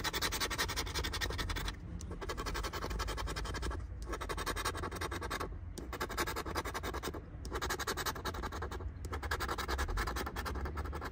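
Rapid scratching of a scratch-off lottery ticket's coating with a pointed pen-like tool on a clipboard. The quick strokes stop briefly about every one and a half to two seconds as each spot is cleared.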